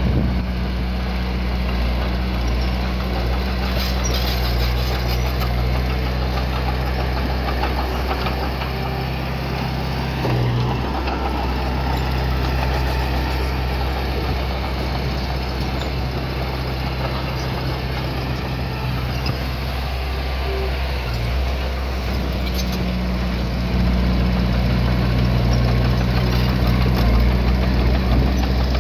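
A heavy-equipment diesel engine running steadily at low revs, with its steady low drone; it grows a little louder near the end.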